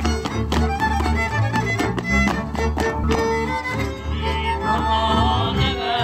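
Lively instrumental music with a steady beat and a bass line. About four seconds in, a wavering higher line joins.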